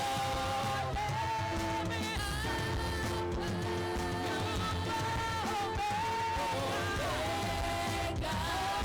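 Live worship music: a singer holding long, wavering notes over a band accompaniment with a steady low bass and drum beat.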